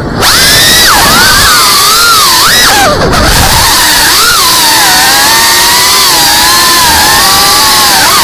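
GEPRC CineLog 35 cinewhoop's brushless motors and ducted propellers whining, the pitch swooping up and down as the throttle changes. About three seconds in, the whine briefly dips and climbs again.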